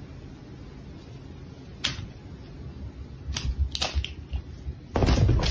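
Steady low hum of a big store's background, with a few sharp clicks or taps in the middle, then a louder burst of rustling noise near the end.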